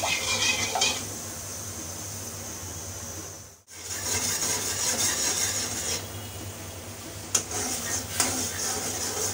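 Metal spoon scraping and stirring around a karahi of bubbling sugar syrup that is being cooked down to caramel. The sound breaks off briefly about three and a half seconds in, and a few sharp knocks of the spoon against the pan come near the end.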